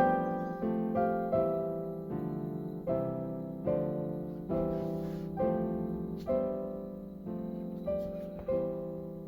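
Background piano music: slow notes struck one after another, each ringing and fading, cutting off suddenly at the end.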